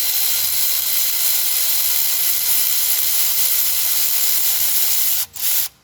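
Steady, loud hiss of compressed air from a shop air line, likely blowing out a freshly tapped bolt hole. It breaks off briefly about five seconds in, resumes, then cuts off near the end.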